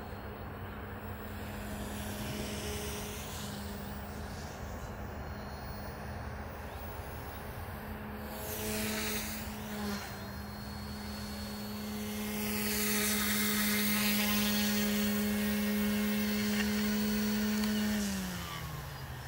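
OMP Hobby M1 electric RC helicopter flying: a steady rotor and motor hum, with a whoosh of the blades that swells as it comes close. After it lands, near the end, the rotor spools down and the pitch falls.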